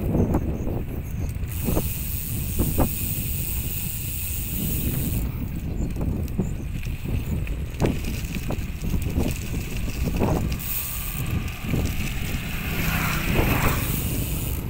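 Wind buffeting the microphone over tyre noise from bicycles riding on a concrete road, with scattered knocks and rattles as the bikes go over bumps and cracks. A brief hiss comes about thirteen seconds in.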